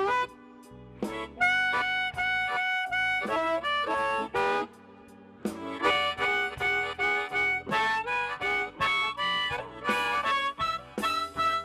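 Blues harmonica played live in short phrases with bent notes, broken by two brief pauses, one early and one about halfway through.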